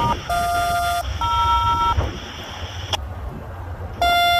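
Railroad radio scanner sending a series of steady touch-tone-style beeps, each a pair of tones under a second long, with a pause of about two seconds before the last one. A short click comes near the three-second mark, over a low background rumble.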